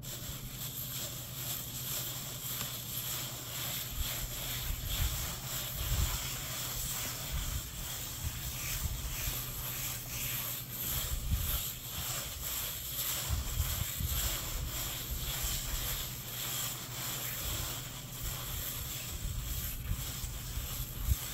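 Plastic trowel swishing and scraping over wet acrylic super fine stucco finish on a foam board, in continuous smoothing strokes, with wind rumbling on the microphone.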